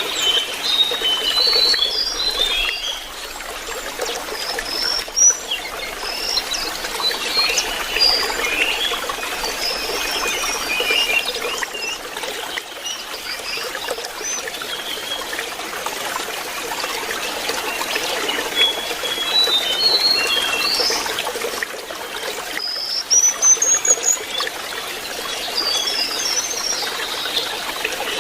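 Lesser shortwing singing: repeated clusters of short, high warbling and twittering phrases, over the steady trickle of running water.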